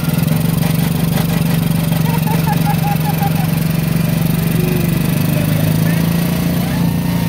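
Engine of a small open novelty ride car running steadily with a continuous low drone.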